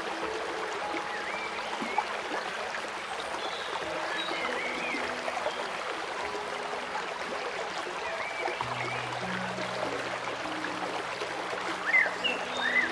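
Steady rush of running water mixed with soft ambient music of long, held low notes. Scattered short chirps come and go over it.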